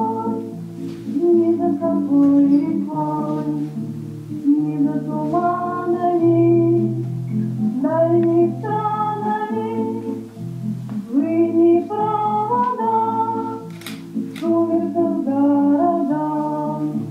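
Slow song playing: a melody over a bass line that steps from note to note, with singing heard but no words made out. Two sharp clicks come about three-quarters of the way through.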